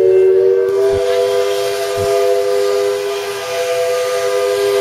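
Steam locomotive whistle blowing one long, steady blast of several notes sounding together, with a hiss of steam behind it.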